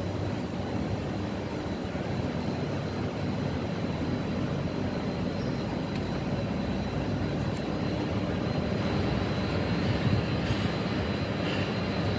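A motor running steadily: a low rumble with a thin high whine above it, getting slightly louder through the second half.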